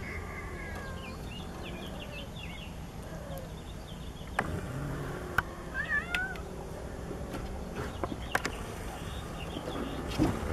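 Domestic cat meowing and yowling in complaint, the sign of a cat unhappy at another cat coming close, with a few sharp knocks mixed in.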